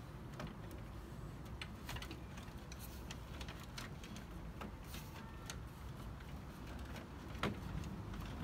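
Scattered faint clicks and taps of plastic kidney grilles being handled and pressed into place in the front panel of a BMW E34, over a low steady background rumble.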